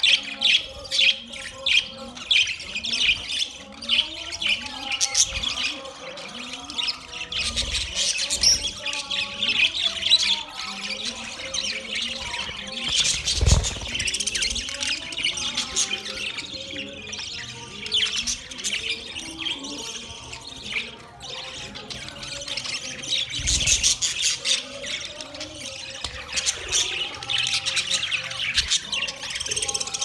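A flock of budgerigars chattering: continuous overlapping chirps, squawks and warbles. A dull low thump comes about halfway through.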